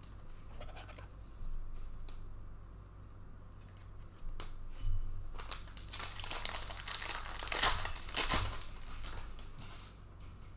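Clear plastic crinkling and rustling as a trading card in its plastic is handled, starting faintly and turning to a loud run of crackling from about five seconds in that fades out near the end.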